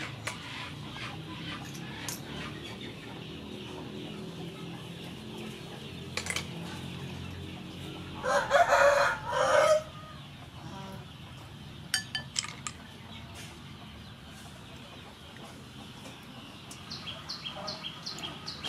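A rooster crows once, loudly, about eight seconds in: one call of under two seconds with a short break near its end. Faint scattered clicks come before and after it.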